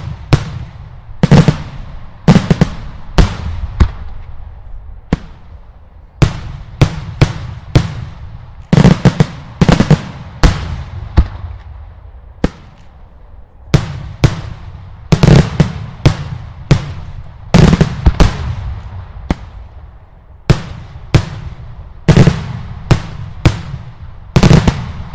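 Italian daylight fireworks: a steady series of loud aerial shell bursts, about one to two bangs a second, each echoing away, with a short lull in the middle.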